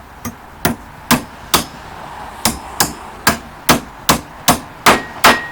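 A hammer striking the hardware of a Hog Head rod clamp on a concrete wall form about a dozen times, roughly two blows a second, with a short pause after the first few. The blows grow louder toward the end, and a faint ring follows the last ones.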